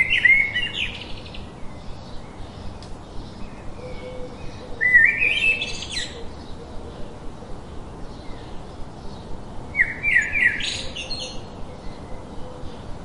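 A songbird singing the same short phrase of quick notes stepping upward three times, about five seconds apart, with a faint quick regular ticking underneath.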